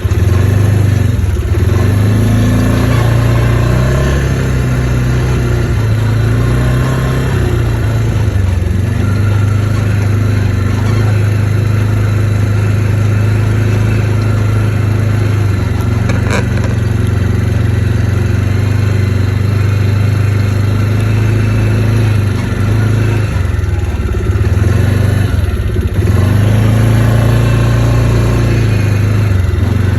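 ATV engine running while riding, with its pitch dipping and rising a few times as the throttle is eased and opened again.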